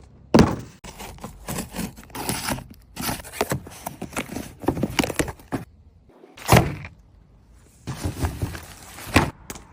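Packaging being handled and opened: rustling and scraping broken by knocks, with loud thuds near the start, a little past six seconds and about nine seconds in.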